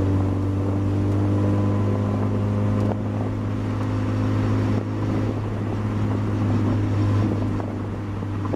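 Steady engine and road drone of a car heard from inside the cabin while driving, a constant low hum with no change in pitch.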